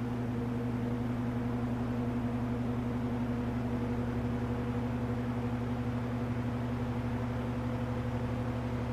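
1963 GE electrically reversible box fan running on low with its blade turning in reverse, still building up speed: a steady motor hum over the rush of air.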